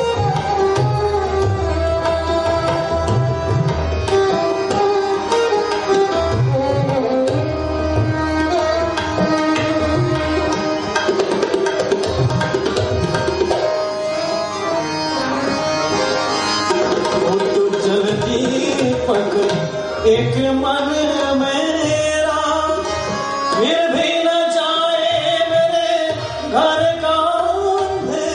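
Live ghazal music: a harmonium carrying the melody over a tabla rhythm.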